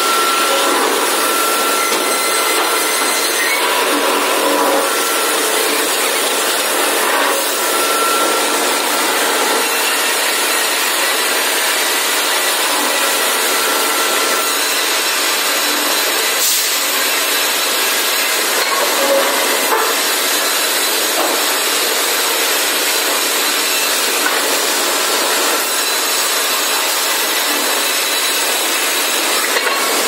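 Industrial sawmill band saw cutting lengthwise through a log, a steady, unbroken sawing noise from the blade in the wood.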